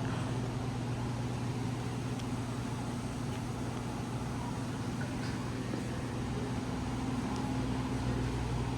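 Steady low mechanical hum over a faint background hiss, with a few soft ticks.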